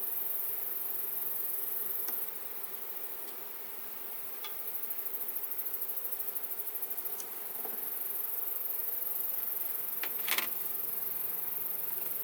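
Honeybees buzzing steadily around an open hive, with a few light knocks and clicks as hive parts are handled and put back together, the loudest about ten seconds in.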